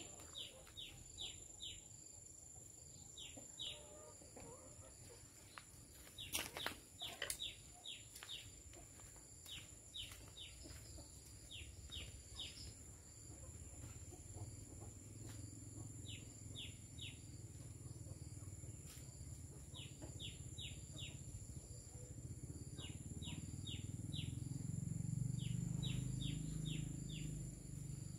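Faint garden ambience: a bird chirping in quick groups of three to five short falling notes, repeated every second or two. Underneath are a steady high-pitched hum and a low rumble that swells near the end, with a few brief clicks about six to seven seconds in.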